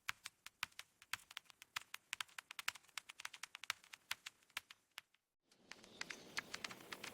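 Mechanical keyboard keys clacking under light, irregular presses, several a second, stopping about two-thirds of the way through. Soft music fades in near the end.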